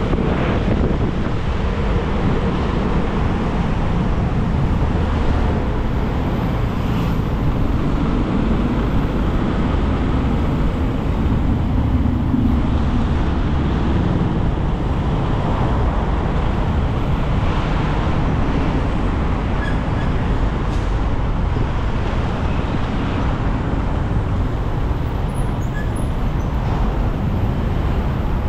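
Steady engine and road noise from riding a motorcycle in slow city traffic, with other motorcycles and cars running close by.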